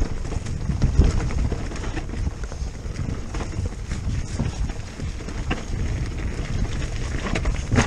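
Wind buffeting the camera microphone over the rumble and rattle of a Giant Stance E+ electric mountain bike riding fast down a dirt forest trail, with frequent short knocks as it hits bumps and a louder knock near the end.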